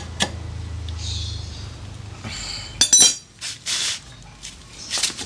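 Honda Beat FI scooter's single-cylinder engine idling with a steady low hum, dying away about two seconds in. A few sharp metallic clinks and clatter follow about three seconds in.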